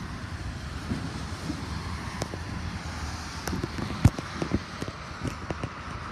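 A freight train of covered hopper cars rolling by below: a steady low rumble with wind on the microphone, and a run of sharp knocks, the loudest about four seconds in.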